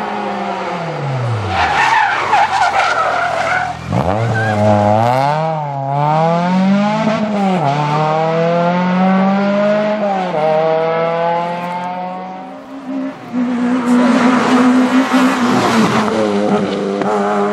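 Rally cars at speed. An engine's revs fall as a car slows for a bend, then it accelerates hard, the revs climbing and dropping back at each upshift about every two seconds. Near the end a second car runs through a corner with its engine held high and loud tyre noise.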